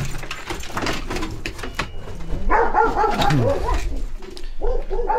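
Dogs barking and yelping, eager to be let outside, with short clicks and knocks in the first couple of seconds. The main run of barking comes about halfway through, with more near the end.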